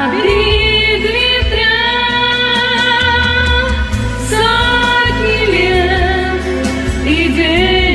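A woman singing long, held notes with vibrato over a karaoke backing track with a steady bass line.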